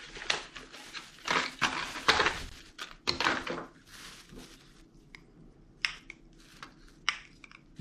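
Irregular knocks, thunks and rustling, like gear or objects being handled, busiest in the first few seconds and then thinning out to a few sharp clicks.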